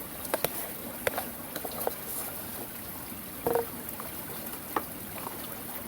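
Scattered light clicks and knocks of cookware being handled over a steady soft hiss, with one brief ringing clink about three and a half seconds in.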